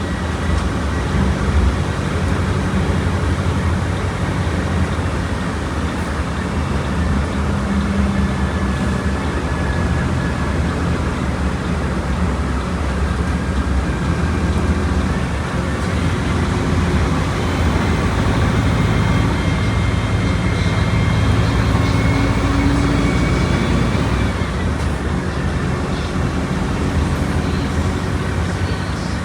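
Diesel engine of a Volkswagen Volksbus 17.230 Euro 6 bus running under way, a steady drone that rises and falls in pitch as it speeds up and eases off.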